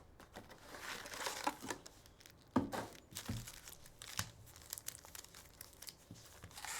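Plastic wrapping on trading card packaging being torn open and crinkled in irregular crackles, with one sharper rip about two and a half seconds in.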